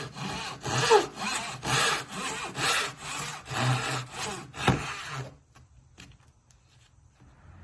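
Hand saw cutting through wood in quick back-and-forth strokes, about two a second, that stop about five seconds in.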